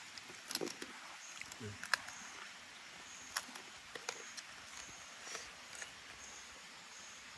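Short high chirps of night insects repeating about once a second, with scattered light clicks and taps as food and a spoon are handled on banana leaves and a bamboo tube.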